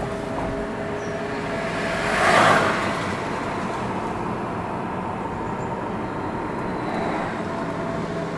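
Renault ZOE driving at low speed, heard from inside the cabin: tyre and road noise with the faint steady tones of its pedestrian warning sound, the 'spaceship sound'. A brief rushing swell comes about two and a half seconds in.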